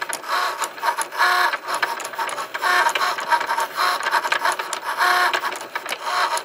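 Cricut electronic cutting machine cutting a design from white card: its motors whirr as the blade carriage and mat move back and forth, with short pitched whines recurring about once a second.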